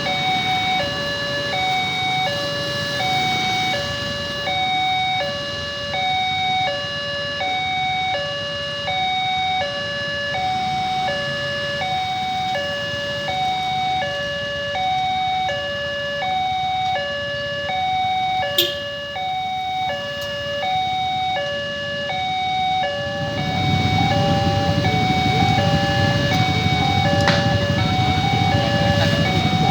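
Railway level-crossing warning siren, the electronic kind: two tones alternating high and low, each lasting about two-thirds of a second, repeating steadily. About three-quarters of the way in, a louder low rumble joins it and continues under the siren.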